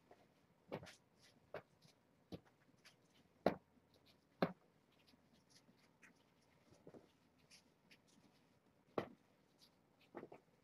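Cat litter box being emptied and changed: irregular light knocks and scratchy rustles a second or so apart, with three sharper knocks standing out.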